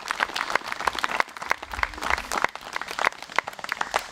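Crowd applauding: many hands clapping at once, thinning out near the end.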